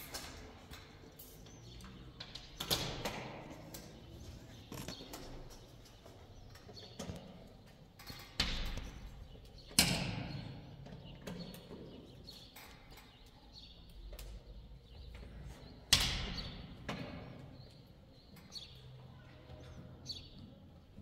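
A handful of loud thuds at irregular intervals, each dying away over about a second, with a few smaller knocks between them.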